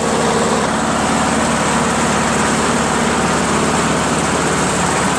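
Honda HRZ216 lawn mower's single-cylinder GCV160 engine running steadily, with its air cleaner off, burning off oil that had flooded the carburetor.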